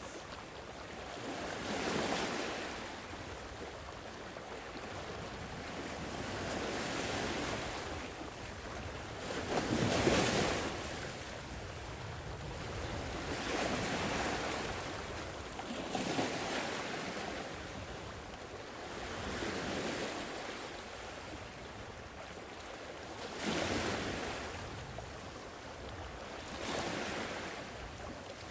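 Sea waves washing ashore, each wave swelling and ebbing every three to four seconds, the biggest about a third of the way in.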